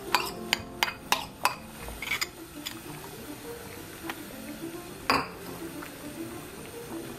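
A metal spoon clinking against a dish or pot, about three quick clinks a second for the first two or three seconds, then one louder clink a little after five seconds in, over soft background music.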